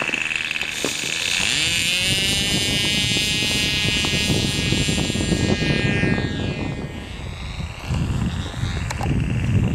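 Radio-controlled floatplane model's motor and propeller opening up from low throttle, the pitch rising over about a second to a steady high whine as it takes off from snow. Then the pitch falls as the plane passes and flies away, over a steady low rumble.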